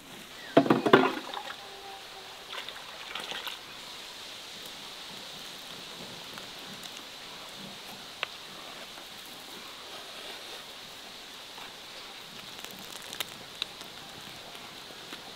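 Cherry plums boiling in a wide open pan, a steady bubbling and hissing, with a few light clicks from the skimming strainer. A brief loud pitched sound rises over it about half a second in.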